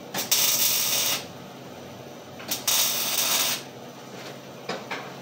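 MIG welder laying two short tack welds on a steel gate panel, each a crackling hiss lasting about a second, the second starting about two and a half seconds in.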